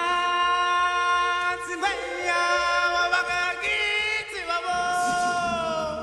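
Unaccompanied singing of an intro jingle: long held notes that change pitch about every two seconds.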